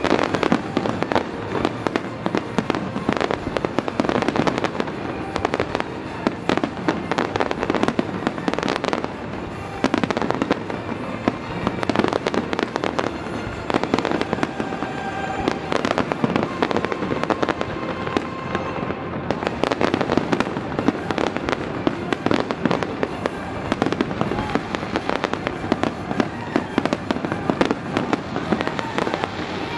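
Aerial fireworks shells bursting in quick succession: a dense, unbroken run of bangs through the show's finale.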